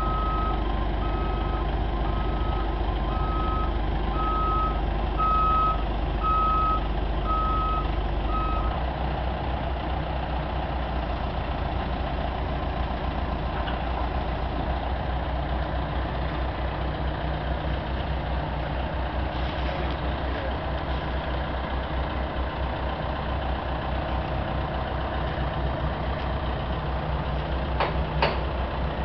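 A vehicle backup alarm beeps about once a second for the first nine seconds or so over a steady engine, which then runs on alone. A couple of sharp knocks come near the end.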